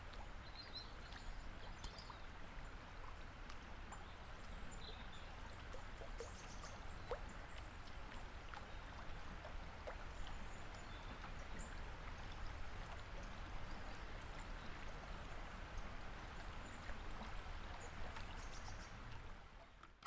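Faint, steady sound of running water with scattered small high chirps or ticks.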